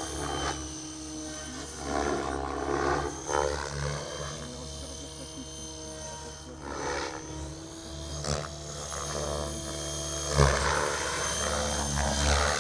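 Radio-controlled model helicopter flying aerobatics: a steady whine from its motor and rotors, with repeated swells of rotor-blade noise as it flips and turns, the loudest about ten seconds in as it swoops low.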